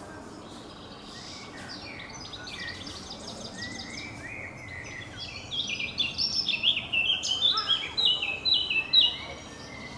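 Small songbirds chirping and singing in quick series of short high notes. About halfway through, one bird sings louder, a fast run of repeated down-slurred notes that stops shortly before the end.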